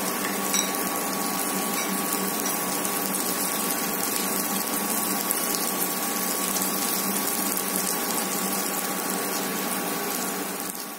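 Steady sizzle of tomatoes, dried red chillies and curry leaves frying in a pan on an induction cooktop, with a faint steady tone; it fades out near the end.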